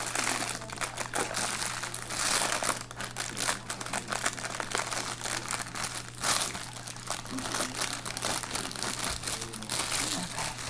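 Plastic packaging crinkling and rustling in irregular bursts as a yarn shipment is unwrapped and handled, over a steady low hum.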